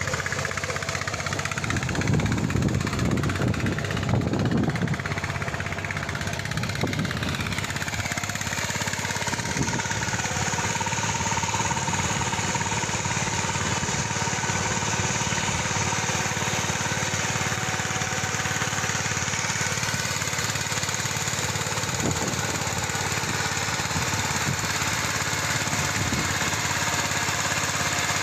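Engine of a ploughing machine running steadily in a field, rougher and louder for a few seconds about two seconds in.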